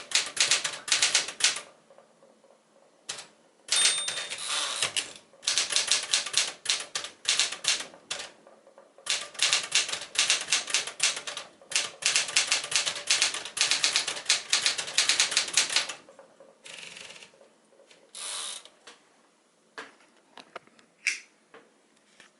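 1976 Smith-Corona Classic 12 manual typewriter being typed on: fast runs of sharp key strikes broken by short pauses, with a brief ringing tone about four seconds in. The typing stops about sixteen seconds in, giving way to a few softer scraping sounds and scattered clicks.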